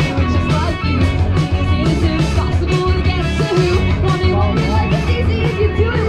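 A rock band playing live over a PA system: electric guitars over a drum kit keeping a steady beat.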